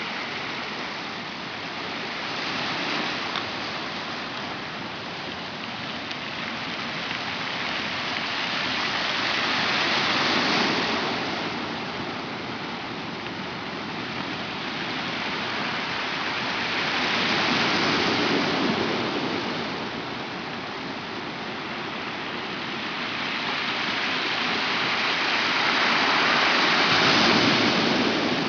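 Rocks on the shore rolling and knocking together in the backwash as waves pull back out to sea. It makes a rushing hiss that swells and fades about every seven to eight seconds.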